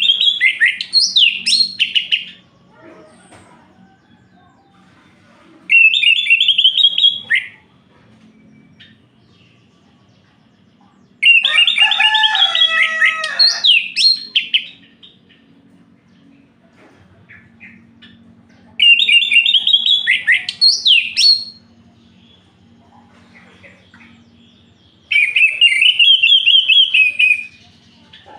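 Orange-headed thrush singing: five loud phrases of quick, gliding whistled notes, each two to three seconds long, coming about every six seconds with quiet gaps between. The middle phrase also drops into lower notes.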